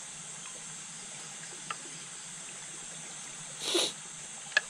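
Pot of asam pedas fish broth simmering over the flame, a steady hiss, with a brief louder rush about three and a half seconds in and a sharp click near the end.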